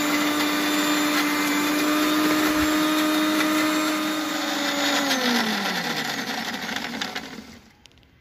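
Electric mixer grinder running steadily, blending cashews and poppy seeds with oil into a smooth paste. It is switched off about five seconds in, and its whine falls as the motor spins down.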